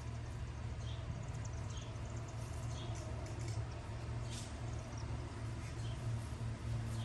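Short, high-pitched squeaks from a small animal, repeating about once a second over a steady low hum.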